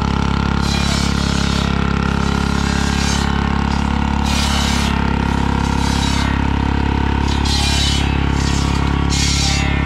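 Small tractor engine running steadily at constant speed, with irregular bursts of clatter over it.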